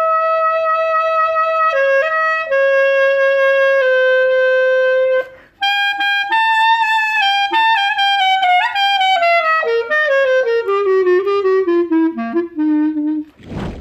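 Single-reed woodwind played through a 3D-printed ceramic mouthpiece: a slow solo melody of long held notes. After a short breath about halfway, a phrase steps steadily downward to a low closing note, which ends with a brief click.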